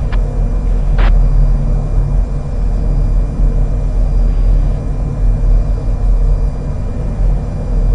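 Steady low rumble, with one short click about a second in.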